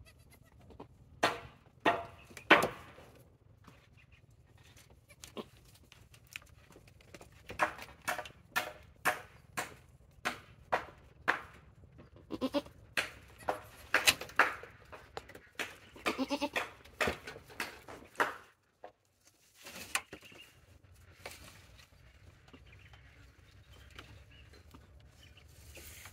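Doe goat in labour giving a series of short, strained bleats and grunts, mixed with sharp clicks, busiest in the first two-thirds and dying away near the end.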